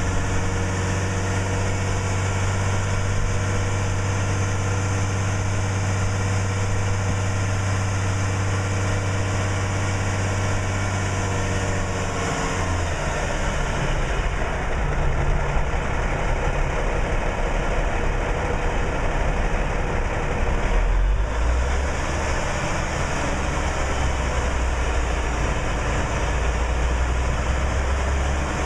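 The Cummins NHC-250 inline-six diesel of an M929A1 5-ton 6x6 dump truck runs steadily, driving the hydraulic hoist that tips the dump bed up. About twelve seconds in, the engine note drops to a lower, rougher hum. About two-thirds of the way through there is a brief thump.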